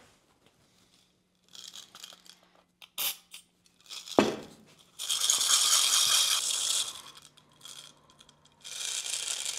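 Tiny steel bearing balls rattling inside a small cup as it is shaken to clean the grease off them. There are a few light clicks first, then a long spell of dense rattling about five seconds in and a shorter one near the end.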